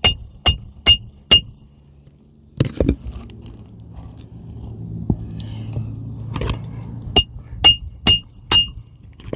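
Hammer driving roofing nails through an asphalt shingle into the roof decking: two runs of four quick, ringing strikes, about two a second, one at the start and one near the end, with handling noise between.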